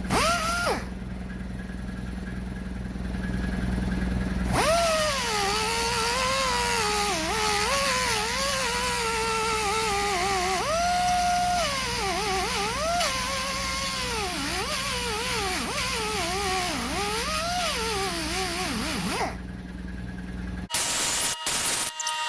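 Air compressor running with a steady low hum; about four and a half seconds in, an air-powered grinder starts up, its whine rising and falling in pitch as it is pressed against the crossbar to grind off built-up paint. The grinder stops shortly before the end, and the compressor hum then cuts off.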